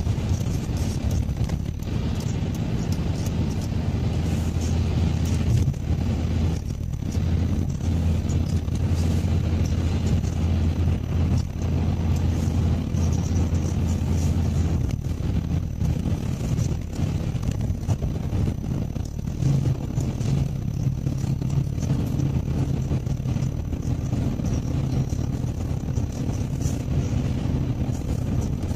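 Car engine and tyre noise heard from inside the cabin while driving on a wet road: a steady low hum over a constant hiss, the hum shifting up in pitch about two-thirds of the way through.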